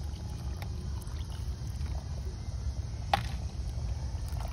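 Water pouring from a bottle into a pot of curry, over a steady low rumble; a sharp click about three seconds in.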